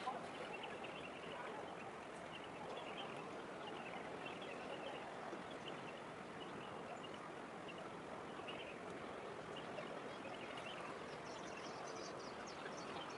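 Steady distant hum of a harbour city, with small birds chirping in short scattered notes over it and higher chirps near the end.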